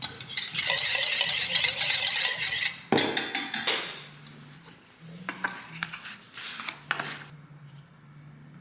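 A kitchen utensil scraping and clattering against a bowl while scone dough is mixed, a long scrape over the first few seconds, a shorter one about three seconds in, then a few light taps.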